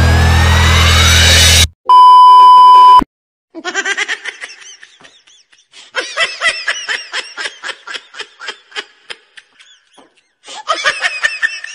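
Music with a rising sweep cuts off, then a loud steady beep tone sounds for about a second. A laughing sound effect follows: rapid bursts of high laughter that pause briefly twice.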